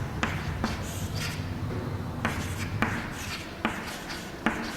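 Writing on a board: short scratchy strokes with several sharp taps as the tip strikes the surface.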